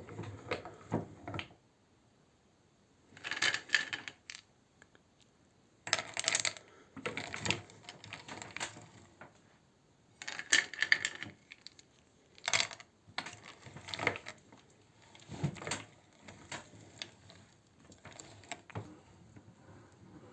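Hard candy crunching and rattling in a meat grinder: irregular bursts of sharp clicking and cracking, several seconds apart with short pauses between.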